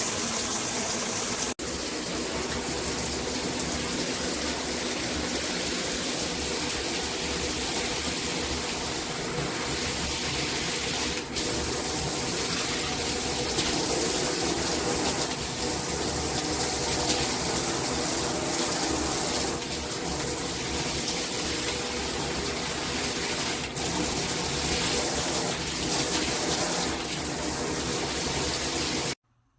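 Moen Magnetix handheld shower head spraying water in a steady rush, which cuts off suddenly near the end.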